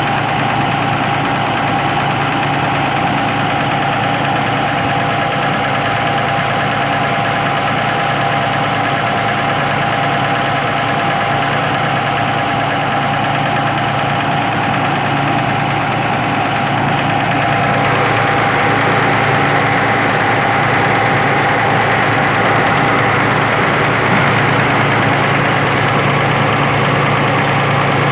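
Hino EP100 straight-six diesel engine in a Hitachi EX300 excavator running steadily at idle; about two-thirds of the way through it gets a little louder, with more high-pitched noise. The owner believes the engine has a fault.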